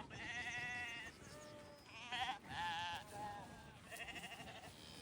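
Several sheep bleating one after another, with wavering, quavering calls that overlap a little.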